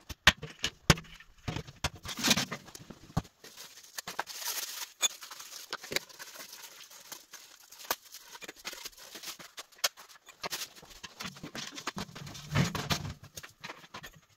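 Irregular clicks, knocks and rustling from an ash vacuum's parts and packaging being handled during unboxing, busiest near the start and again near the end.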